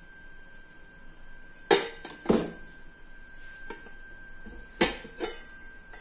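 Kitchen utensils and cookware knocking together: four sharp clinks and clatters, two about two seconds in and two near the end. A faint, steady high whine runs underneath.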